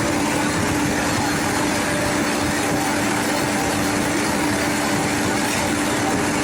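Asphalt paver's engine running steadily under a constant wide machine noise, with one even tone held throughout.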